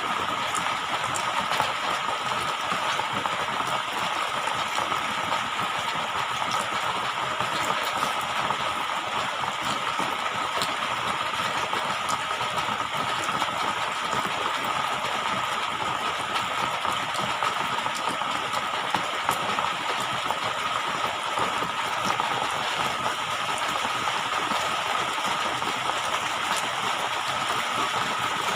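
Steady rushing, hissing water, even in loudness, with a constant high tone running through it.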